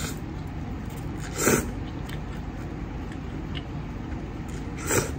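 Two short slurps of tom yum ramen, about a second and a half in and again near the end, over a steady low background hum.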